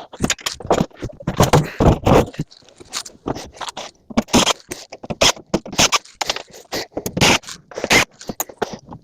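Scrap metal, apparently aluminum, clattering and scraping as pieces are handled and dropped: an irregular run of short knocks and scrapes with brief pauses between them.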